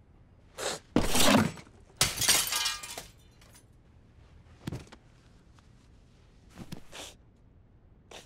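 Glass breaking: a framed photograph's glass smashed, two loud crashes about a second apart, the second with a trailing clatter, followed by a few fainter knocks.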